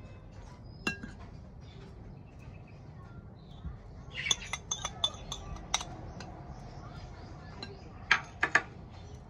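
Metal serving utensils clinking against the rim and sides of a serving bowl while a leafy salad is tossed: one clink about a second in, a quick run of clinks around four to six seconds in, and three sharp clinks near the end.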